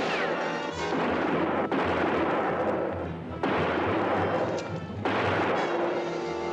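Gunfire in a shootout: about four shots, roughly one every second or two, each with an echoing tail. A falling ricochet whine sounds near the start.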